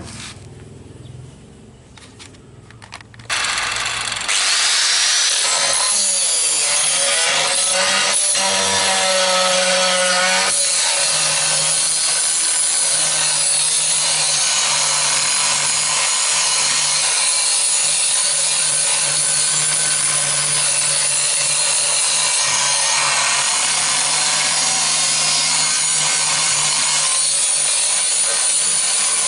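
Four-inch angle grinder starting up about three seconds in, then grinding steadily against a steel knife blade to shape it, a continuous abrasive hiss over a high whine.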